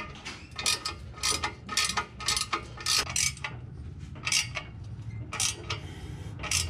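Ratchet wrench clicking in short strokes as it tightens the nuts of an exhaust pipe clamp, with a brief pause about three and a half seconds in.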